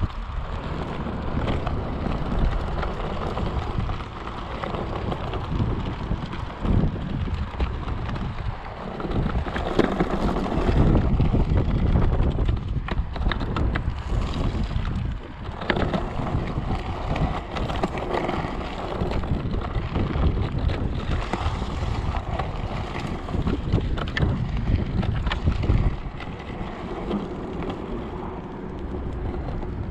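Okai ES400A electric scooter ridden over a bumpy dirt track. Wind buffets the handlebar-mounted microphone, under a rumble of tyres on dirt and frequent rattles and knocks from the scooter over the bumps.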